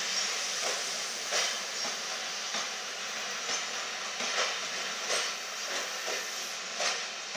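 Pullman coaches rolling slowly past along a platform, their wheels giving repeated clicks and knocks over the rail joints, under a steady hiss.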